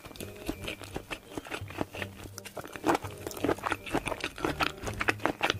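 Close-miked ASMR chewing: a mouthful of food worked with the mouth closed, giving many quick irregular mouth clicks.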